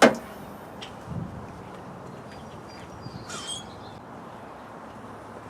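A sharp clack, then a duller thump about a second later. A bird chirps briefly in the background about three seconds in.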